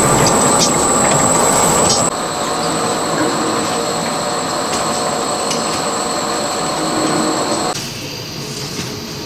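Paper napkin and towel converting machinery running: a steady mechanical clatter and hum with a thin high whine. The sound changes abruptly about two seconds in and again near the end, getting somewhat quieter each time.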